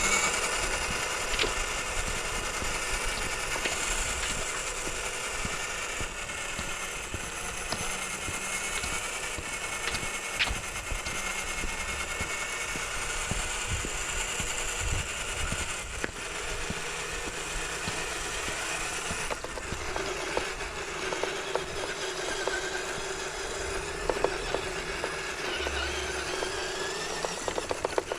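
Electric motor and gearbox of an RC4WD TF2 scale crawler whining as it drives along a trail. The pitch rises and falls with the throttle, over a steady grind with scattered clicks.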